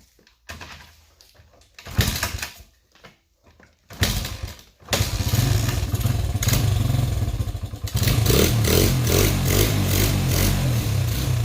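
Honda XR100R's small single-cylinder four-stroke engine firing briefly twice, then catching about five seconds in and running on, its freshly cleaned carburetor feeding it. The engine gets louder again near eight seconds.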